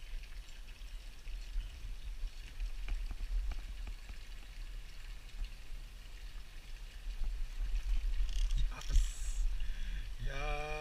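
A steady low rumble with scattered light clicks and ticks from a spinning fishing reel being handled.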